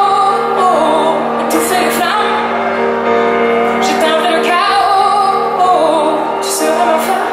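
A woman singing live at the piano, holding long wavering notes over sustained piano chords, heard through a concert sound system.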